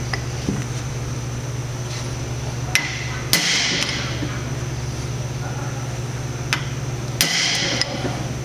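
Hammer driving a chisel against a shaft bearing's locknut and lock-washer tab, bending the tab to lock the nut: four sharp metal-on-metal blows in two pairs about four seconds apart, the second blow of each pair ringing briefly. A steady low hum runs underneath.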